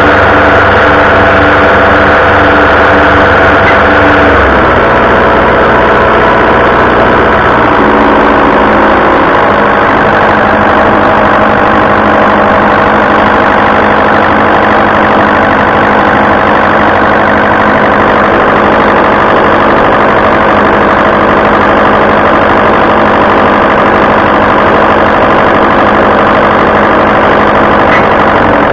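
Diesel fuel injection pump running on a test stand, a loud steady mechanical running. Its speed steps down about four seconds in and again around eight to nine seconds in, then holds steady.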